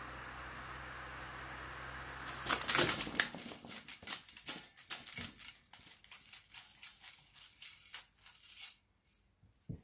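TEAC A-3300SX reel-to-reel deck rewinding, its motors giving a steady hum. About two and a half seconds in, the tape runs fully off onto the reel and the loose tape end starts slapping with each turn of the still-spinning reel: a rapid flapping that slows as the reel coasts down, then stops when a hand stops the reel.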